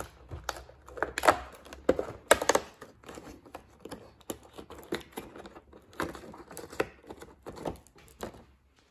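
Cardboard advent calendar door being torn open and a foil-wrapped chocolate picked out from behind it: an irregular run of sharp crackles, rips and clicks.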